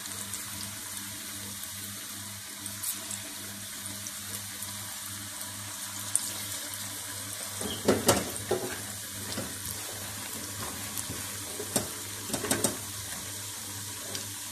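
Kaddu pakoras deep-frying in hot ghee in a steel pan: a steady sizzling hiss with scattered crackles, and a few louder crackles about eight seconds in and again near twelve seconds.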